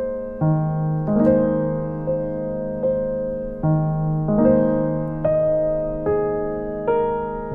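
Background music: slow, gentle piano playing sustained chords and notes, a new note struck about every three-quarters of a second and left to fade.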